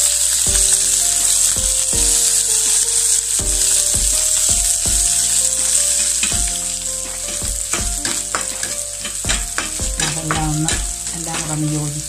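Sliced garlic, green chillies and ginger sizzling as they fry in hot oil in a pan. In the second half a spatula stirs them, clicking and scraping against the pan several times.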